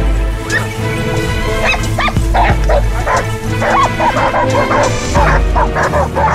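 Hunting dogs barking and yelping in quick bursts from about two seconds in, over background music with a steady bass.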